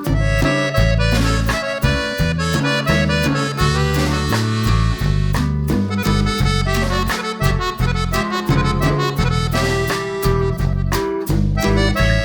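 Background music: an instrumental track with a reedy lead melody over a pulsing bass line.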